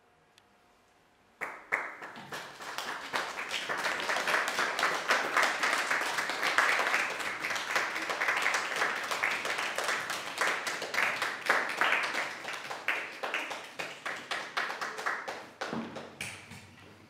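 Audience applauding: clapping breaks out suddenly about a second and a half in, holds dense and steady, then thins to scattered claps near the end.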